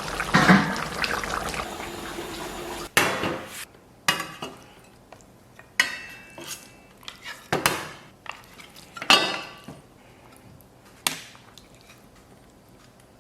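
Pot of braised beef ribs and potatoes simmering with a steady bubbling hiss for about three seconds, then a sudden change to about six separate clinks and knocks of dishes and utensils, spaced one to two seconds apart.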